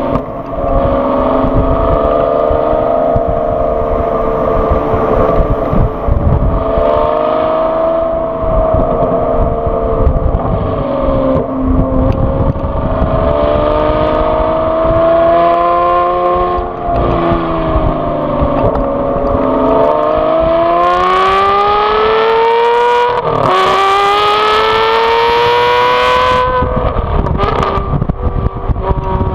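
Aston Martin V12 Vantage S's 5.9-litre V12, tuned to nearly 700 bhp, heard from the rear as the car is driven: the engine note rises and falls with the throttle, then climbs steadily in pitch under acceleration for several seconds about two-thirds of the way in before dropping sharply.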